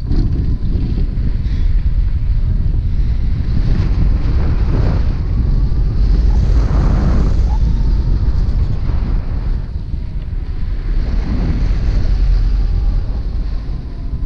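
Airflow buffeting the microphone of a camera mounted on a hang glider's wing in flight: a loud, steady low rumble of rushing air that swells near the middle and eases briefly about two-thirds of the way through.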